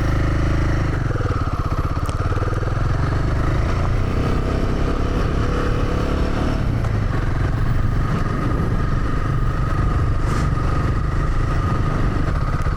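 Royal Enfield Himalayan 450's single-cylinder engine running steadily under load as the motorcycle climbs a rocky dirt track.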